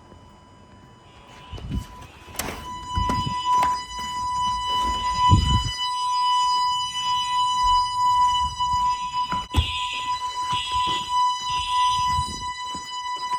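Fire alarm sounders going off in a test. A steady high tone comes on about two seconds in and holds, over another alarm sounding in short pulses about once a second. Several low knocks and thumps sound in the first few seconds.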